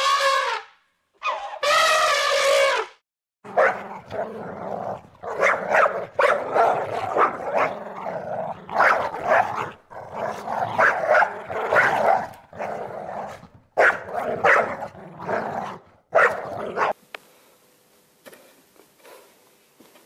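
A small dog barking, yipping and whimpering in a run of short, high calls with brief gaps, stopping about three seconds before the end. Just before it, in the first few seconds, a long pitched animal call.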